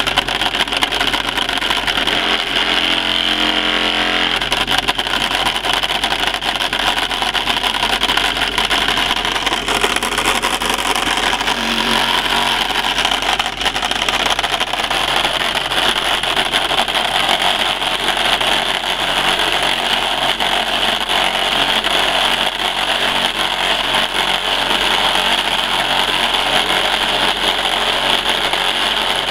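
Small portable engine-driven water pump running steadily at full throttle, mixed with the hiss of water jetting from a pipe into stacked classifier pans.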